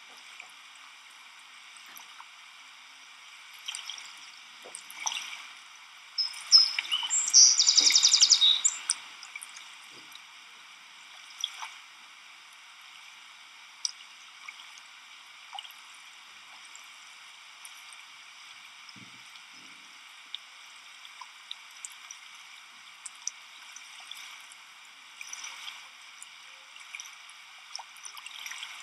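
Pond water splashing and dripping as beavers swim and handle leafy branches, many small scattered drips and splashes over a steady hiss. A louder, busier stretch of splashing comes about seven seconds in.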